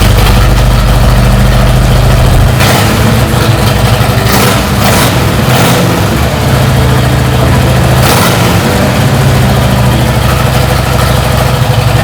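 Harley-Davidson V-twin engine fitted with a Screaming Eagle Stage 1 intake kit, running and revved in several short blips.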